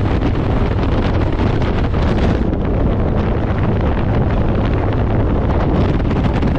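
Wind rushing over the microphone of a motorcycle at road speed, steady and loud, with the bike's engine and road noise underneath.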